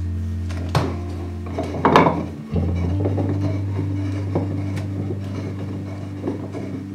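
Wooden screws of a book press being turned by hand, giving short wooden knocks and rubbing clicks; the loudest is a quick rattle of clicks about two seconds in. Calm background music with long held notes plays under it.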